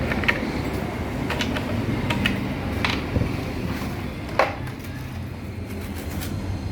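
Scattered sharp clicks and knocks of small parts being handled, the loudest about four and a half seconds in, over a steady low rumble.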